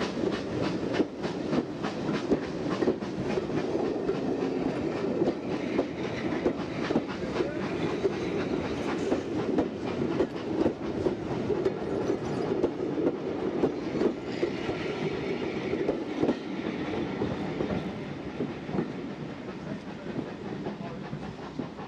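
Railway passenger coaches rolling past close by, their wheels clicking and clattering over the rail joints in a steady clickety-clack that grows quieter near the end.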